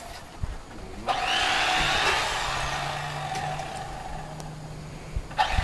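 Electric fillet knife switched on about a second in, spinning up quickly with a rising whine and then running steadily as fish are cut. A sharp knock sounds near the end.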